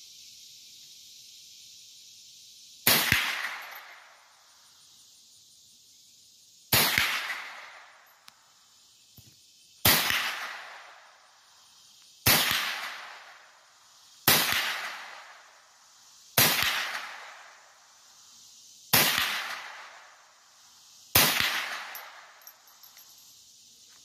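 .22 caliber rifle fired eight times at irregular intervals of about two to four seconds, each sharp shot trailing off over about a second.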